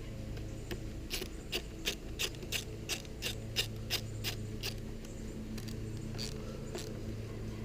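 A small hand-worked mechanism clicking in a steady series, about three sharp clicks a second for some four seconds, then a few fainter clicks, over a steady low hum.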